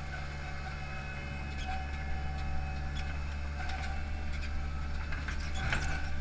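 Hydromak paving machine's engine running steadily as the machine drives, with scattered light clicks and knocks, a cluster of them near the end.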